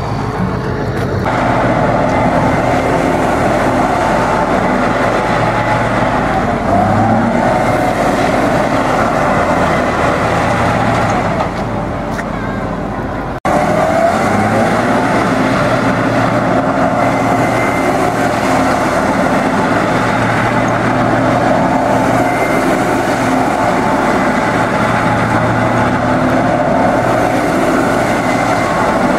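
Pegaso tractor unit's diesel engine running hard at fairly steady revs as the truck drifts on wet asphalt. The sound dips slightly shortly before an abrupt break about 13 seconds in, then carries on just as before.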